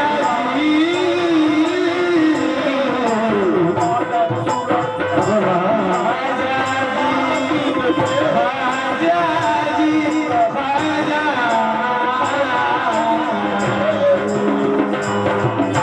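Live Bangla qawwali: a male voice sings a wavering melodic line over harmonium and hand-drum accompaniment, with a steady high tick keeping the beat a little under twice a second.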